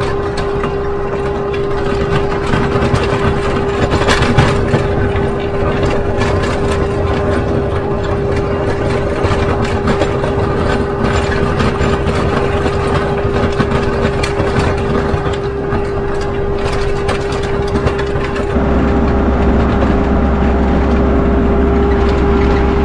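Kubota MX5400 utility tractor's diesel engine running steadily with a constant whine, while its rear blade scrapes snow and gravel with a scatter of rough scraping clicks. About 18 seconds in, the sound turns deeper and smoother.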